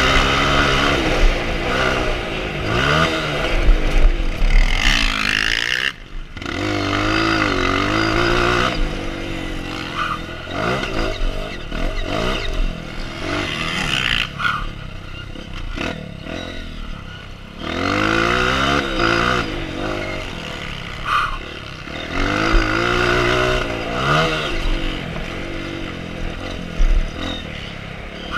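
Honda CRF four-stroke dirt bike engine revving hard and easing off again and again around a motocross lap, its pitch climbing and falling every few seconds as the rider works the throttle and gears, with a sudden drop about six seconds in. Rattles from the bike over the bumpy track come through alongside.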